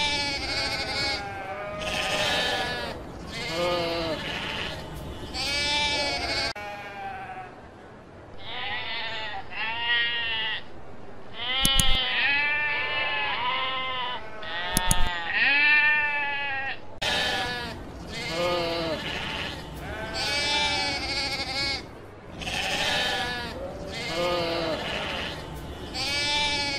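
Sheep bleating again and again, one wavering call after another. Two sharp clicks about halfway through, some three seconds apart, are the loudest moments.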